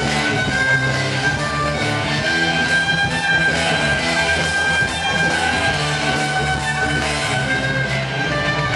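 Loud dance music played through a large sonidero sound system, with a steady bass line and held melodic notes.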